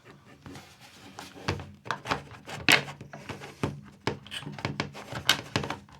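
Irregular clicks, taps and scraping from a tablet's plastic case being pried open with a tool, the loudest snaps coming about one and a half, three and five seconds in.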